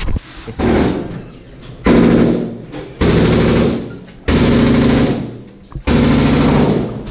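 Bursts of automatic gunfire in an indoor shooting range, about five bursts roughly a second and a half apart, each starting suddenly, lasting about a second and trailing off in echo.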